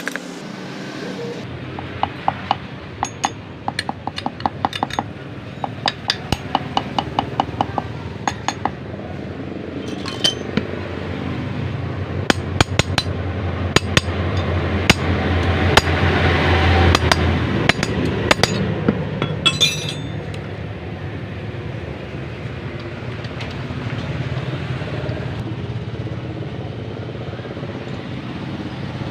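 Light metallic taps and clinks with a short ringing tone, in quick runs of three or four a second, as a new crankshaft oil seal is worked into a Yamaha DT125's aluminium crankcase; the taps thin out after about nine seconds. A low rumble swells and fades in the middle.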